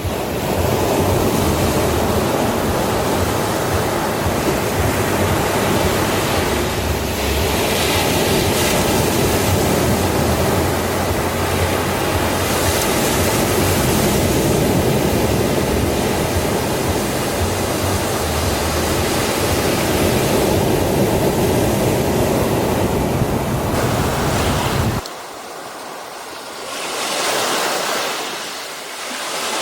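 Ocean surf washing onto a beach in a steady rush. About 25 s in the level drops suddenly, then a single wave swells and falls back, and another begins to build near the end.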